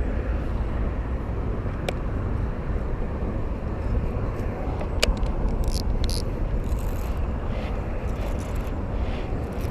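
Steady low outdoor rumble, with two sharp clicks about two and five seconds in and a few brief hissy rustles in the middle of the stretch.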